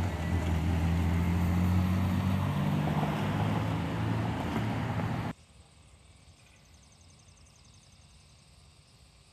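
Road traffic: cars passing through an intersection, a steady engine hum with tyre and road noise, cut off abruptly about five seconds in, leaving a quiet outdoor background.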